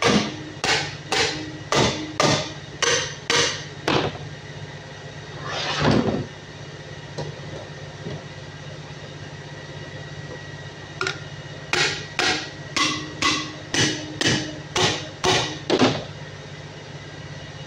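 Hand hammer striking the valve spring retainers of a Cummins KTA50 diesel cylinder head, steel on steel, to check that the valve locks (collets) are seated. It is a quick run of sharp blows, about two to three a second, through the first four seconds and again from about eleven to sixteen seconds in, with a brief scrape about six seconds in.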